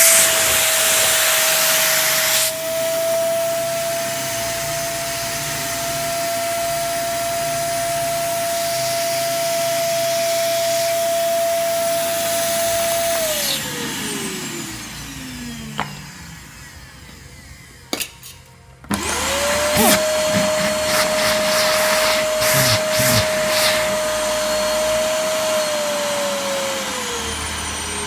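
Volle Kia-109 vacuum cleaner running with a steady high motor whine and a loud rush of air for the first couple of seconds. About halfway it is switched off and the motor winds down to a stop. After a couple of clicks it starts up again and runs on, its pitch dipping briefly near the end.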